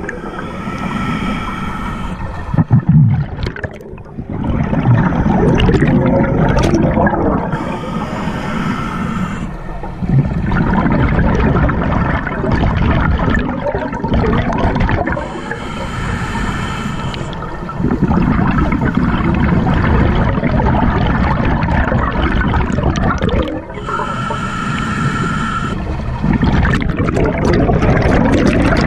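Scuba diver breathing through a regulator underwater: four slow breaths, each a hissing inhalation of about two seconds through the demand valve, followed by a long gurgling rush of exhaled bubbles.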